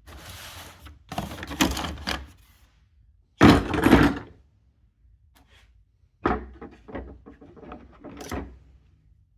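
Handling of the screwdriver set and its packaging: bursts of rustling and sliding with small knocks and clicks, the loudest scrape about three and a half seconds in and a run of clicks and knocks between about six and nine seconds.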